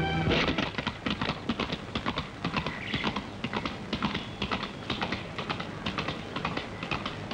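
A rapid, irregular clatter of many sharp clicks, several a second, on a hard surface.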